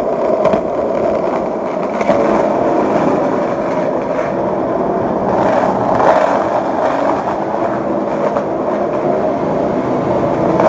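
Skateboard wheels rolling steadily over concrete, a continuous rumble with a few sharper clacks.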